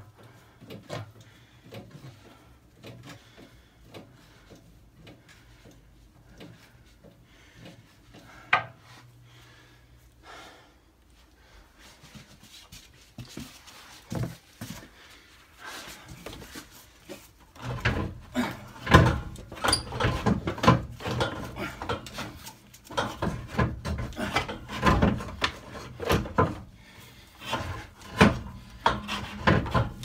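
Knocks and scraping of a gearbox casing being shifted by hand against the engine and surrounding metal while it is lined up onto the clutch spline. Sparse single clicks at first, then from a little past halfway a dense run of loud clunks and scrapes.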